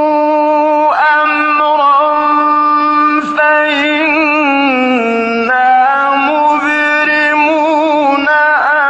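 A male reciter chanting the Quran in slow, melodic mujawwad style, drawing out long vowels with a wavering pitch. The melody steps down to a lower note about halfway through, then climbs back up.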